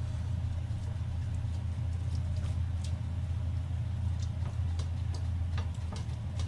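A steady low hum with scattered faint clicks and light taps.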